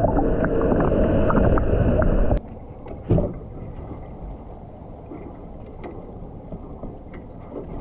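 Loud, muffled rush of water with crackling clicks, heard through a camera held underwater, cutting off abruptly about two and a half seconds in. After that, quieter water sounds beside the boat, with one short knock about three seconds in.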